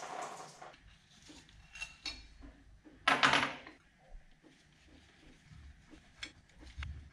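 Hand work on the water pump in a car's engine bay: scattered light metallic clicks and knocks of parts and tools being handled, with one louder, short scraping rustle about three seconds in.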